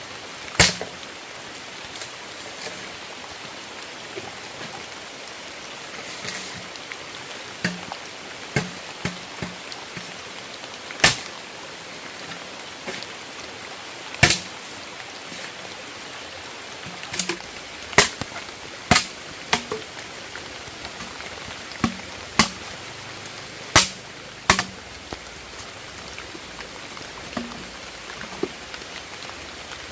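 Firewood giving sharp cracks and knocks at irregular intervals, about fifteen in all and most crowded in the second half, over a steady hiss.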